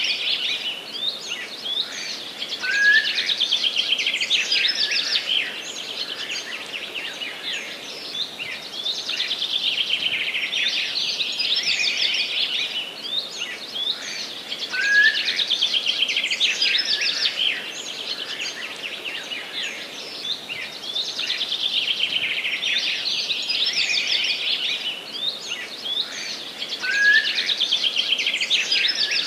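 A chorus of small forest songbirds singing, a dense high-pitched mix of chirps and trills. The same run of song recurs about every twelve seconds.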